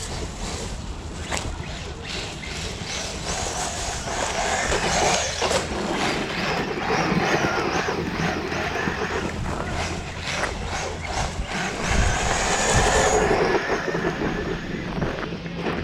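Brushless electric motor of a Maverick Quantum Flux Plus RC monster truck on a 4S battery whining as it drives, with tyre and ground noise and scattered knocks as it runs over bumps.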